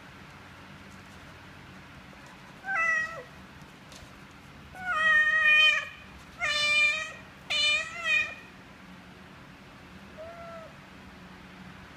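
Mother cat meowing to her nursing kittens in a string of about five calls, the longest about a second, two short ones close together, then one faint short meow near the end.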